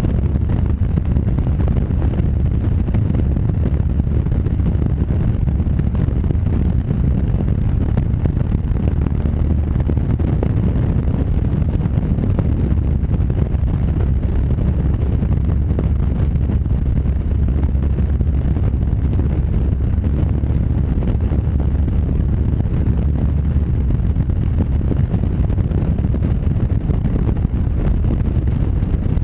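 Honda Varadero motorcycle's V-twin engine running at a steady cruising speed, with a loud, steady low rumble of wind buffeting the bike-mounted camera's microphone.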